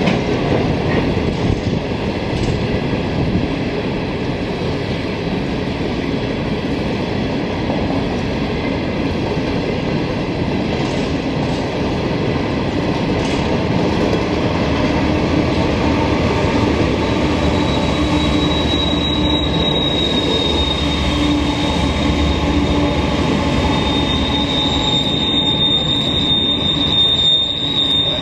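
Norfolk Southern train rolling past with a steady rumble of wheels on rail. From about two-thirds of the way in, a high, steady wheel squeal comes in, loudest near the end.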